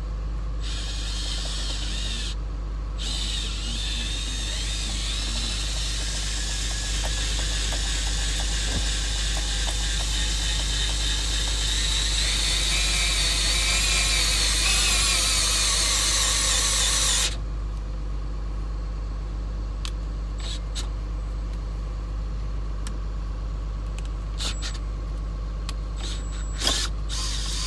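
A small power-tool motor whirring, its pitch wavering and its level rising before it cuts off suddenly about 17 seconds in, over a steady low hum; a few light clicks follow.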